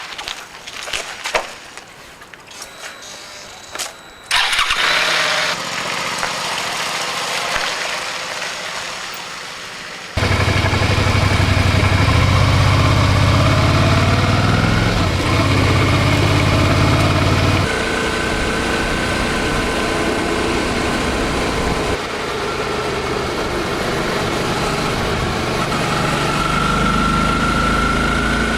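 Motorcycle engine starting and then running steadily, after a few seconds of clicks and knocks; the running sound changes abruptly a couple of times.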